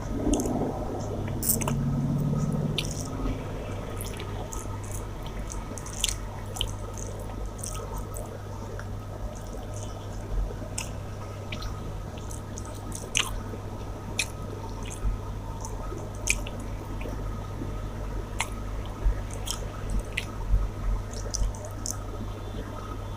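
Close-up wet chewing and mouth smacks of a person eating, with scattered sharp clicks throughout and a steady low hum underneath.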